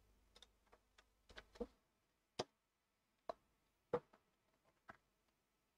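A few faint, scattered clicks from a computer keyboard and mouse, spaced unevenly about a second apart.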